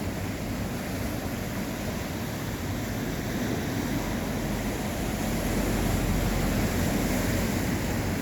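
Ocean waves breaking on a beach, a steady surf wash with a low rumble that swells louder about halfway through.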